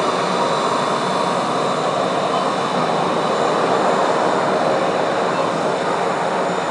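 Airbus A321 taxiing with its jet engines running, a steady rushing noise with a faint high whine over it.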